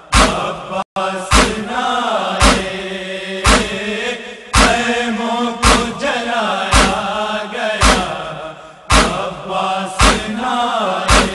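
Noha, a Shia lamentation elegy in Urdu, chanted by a voice in long gliding notes over a sharp, steady beat about once a second. The sound cuts out briefly about a second in.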